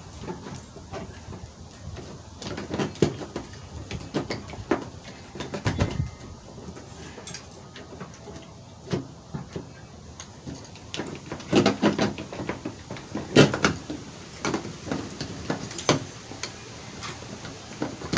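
A replacement exterior door handle being wiggled and pushed into its seat in a 2011 Chevy Tahoe's door: irregular clicks, knocks and rattles, with a few louder clusters of knocks partway through.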